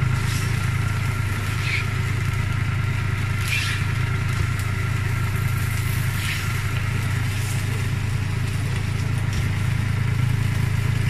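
A spatula stirring and scraping stir-fried noodles in a nonstick frying pan, with a few short scrapes and knocks against the pan. Under it runs a steady low hum, which is the loudest sound.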